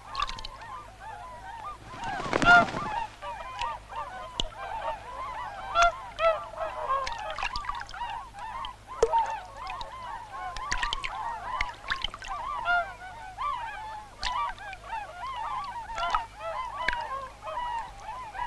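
A flock of waterfowl calling continuously, many short calls overlapping. One louder, noisy burst comes about two and a half seconds in.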